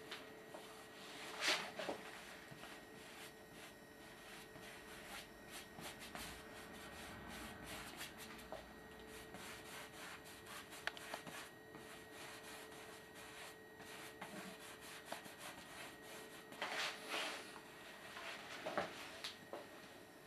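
Bristle paintbrush rubbing paint onto canvas: a faint, continuous scratchy brushing made of many quick strokes, with louder strokes about a second and a half in and again near the end.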